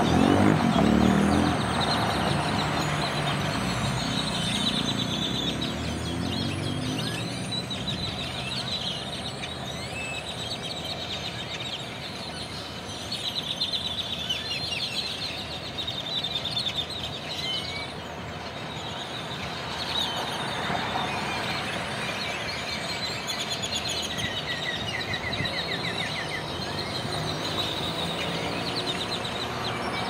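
Large flock of tordos (blackbirds) gathering at an evening roost, a dense, continuous chatter of many overlapping chirps and squeaky calls. Road traffic runs underneath, with a vehicle passing loudest in the first few seconds.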